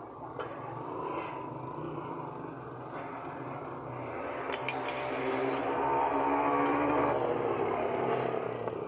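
A motor vehicle's engine running nearby, growing louder about halfway through and easing off near the end, with a few sharp clicks.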